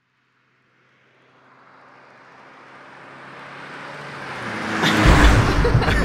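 Car engine and road noise fading up from silence and growing steadily louder for about four seconds, then loud low engine noise from about five seconds in.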